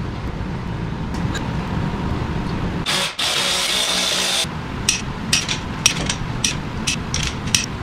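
A cordless power driver whirs for about a second and a half, running down a stud on a bore plate bolted to an LS engine block, and then stops. It is followed by a string of sharp metallic clicks from a wrench working the studs, over a low steady shop rumble.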